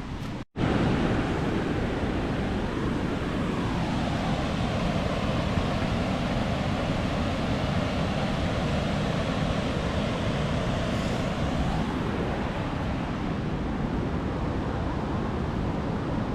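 Rushing water of the River Tees at Low Force, a steady, unbroken noise of the falls and rapids. It follows a brief dropout about half a second in.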